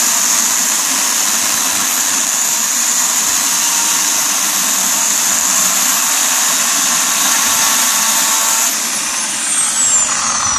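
Bosch AKE 30 S corded electric chainsaw running under load as its chain cuts down through a thick old wooden beam, a steady high whine. Near the end the trigger is let go and the motor winds down, its whine falling in pitch.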